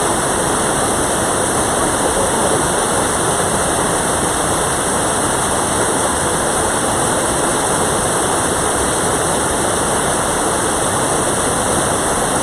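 Rushing water of a mountain stream, a loud, steady, unbroken rush.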